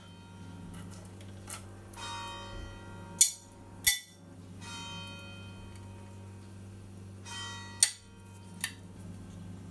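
Light metal clinks and ringing from handling the steel valve plate and reed valves of a compressor pump head: three sharp clicks, with several short ringing tones, over a steady low hum.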